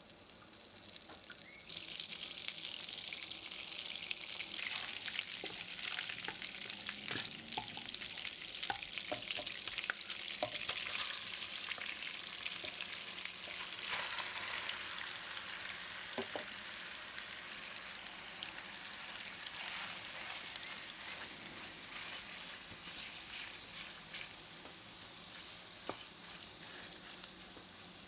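Food sizzling and frying in a hot pan, the sizzle starting suddenly a couple of seconds in as the food goes into the pan, with scattered clicks and scrapes of a utensil stirring it.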